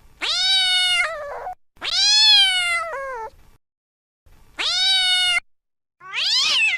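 Domestic cat meowing four times, each meow a drawn-out call that rises and then falls in pitch, the last one shorter and sweeping upward.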